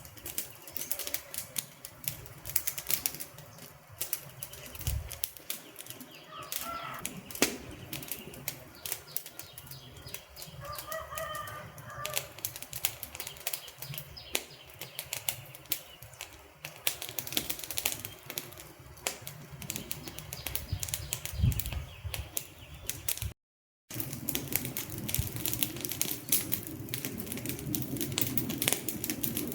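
Wood fire crackling and popping with many sharp snaps. Short bird calls come through twice, and the sound cuts out for about half a second near the end.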